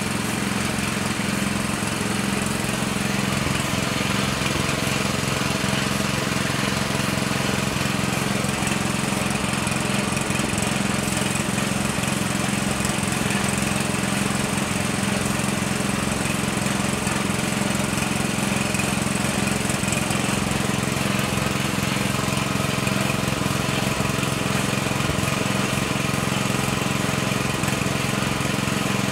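Air compressor running steadily, its motor hum under the continuous hiss of a gravity-feed spray gun spraying clear coat.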